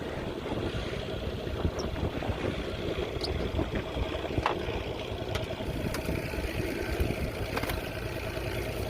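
Boat engine running steadily, with a few faint clicks over it.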